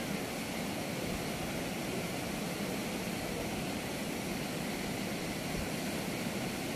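Water pouring through the open gates of a river barrage and churning below them: a steady, even rush of water noise.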